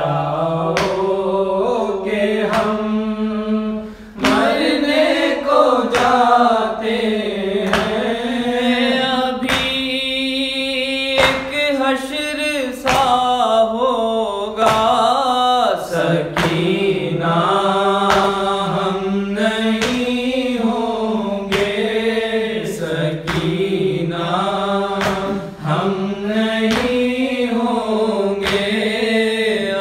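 A male voice reciting a noha, an Urdu lament, in a chanting melody that rises and falls. Short thumps recur at a regular pace, keeping the beat.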